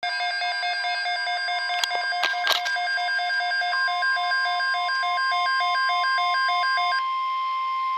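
Weather radio emergency alert tones: a rapid electronic beeping of about four beeps a second, alternating between a low and a high pitch, joined about four seconds in by a steady single tone near 1 kHz, typical of the NOAA Weather Radio 1050 Hz alert tone. The beeping stops about a second before the end while the steady tone holds; a few sharp clicks sound around two seconds in.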